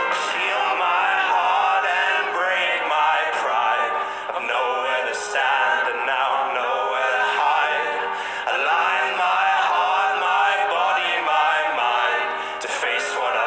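Live folk-rock band playing: several male voices singing together over drums and a steady instrumental backing.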